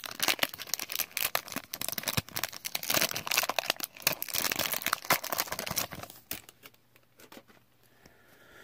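Foil wrapper of a Bakugan Resurgence trading-card booster pack being torn open and crumpled by hand: dense crinkling that stops about six seconds in, followed by a few faint rustles of cards.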